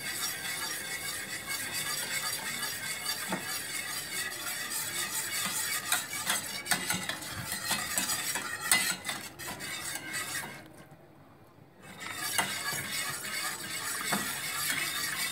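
Wire whisk stirring milk into a butter-and-flour roux in a stainless steel pan, scraping and clicking against the metal as it works out the lumps of flour. About ten seconds in the whisking stops for a second or so, then carries on.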